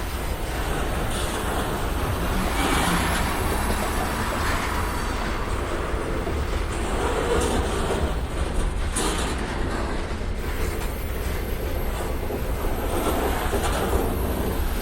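Freight train cars rolling past with a steady rumble, the wheels clicking over rail joints and now and then a faint wheel squeal.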